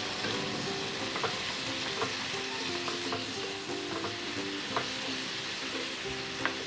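Drumstick (moringa pod) pieces frying in spiced oil in a nonstick kadai, a steady sizzle, with a few light knocks of a wooden spatula against the pan.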